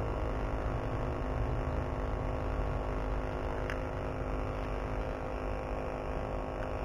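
Steady low rumble with a faint hum and hiss of background noise, and a single faint click a little under four seconds in.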